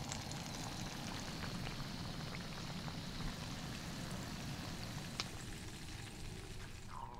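Floured fish fillets sizzling and crackling in hot oil in a small frying pan.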